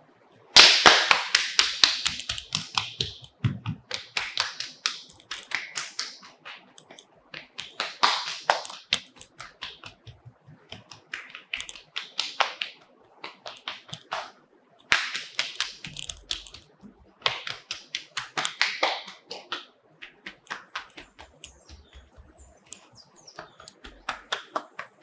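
Hands patting and slapping quickly on the legs through leggings, several slaps a second, in bursts of one to three seconds with short pauses between.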